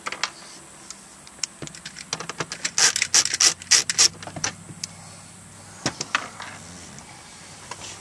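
Removing the screws from the top of a plastic dashboard: small sharp clicks and rattles of the screws and screwdriver against the trim, with a quick run of them about three seconds in and a few more near six seconds.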